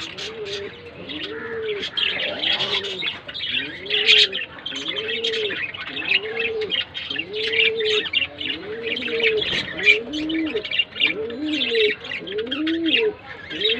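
Birds calling: a low call that rises and falls, repeated about once a second, over a continuous stream of quick high chirps. From about halfway a second, lower call joins in alongside the first.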